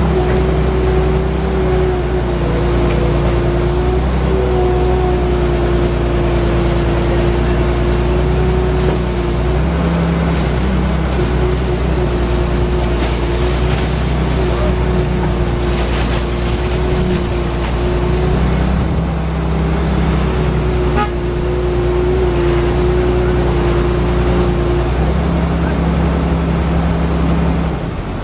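Wheeled excavator's diesel engine running steadily under load, with a steady whine over it, as the bucket digs soil out of a well pit and dumps it.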